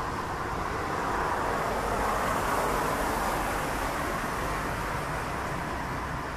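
Distant, steady rumble of a jet airliner at cruise altitude, an Airbus A330-343 with Rolls-Royce Trent 700 engines, swelling slightly a couple of seconds in and then easing.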